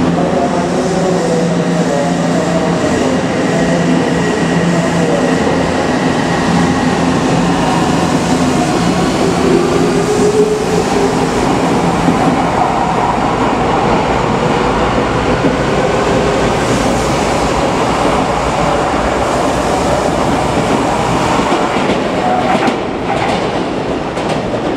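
Odakyu 8000 series electric commuter train pulling out and accelerating past the platform. The motor whine rises in pitch over the rumble of the train, and the wheels clack over the rail joints.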